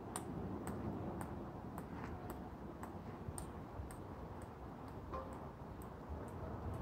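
Golf ball bouncing repeatedly off the face of a golf club, a light sharp click about twice a second.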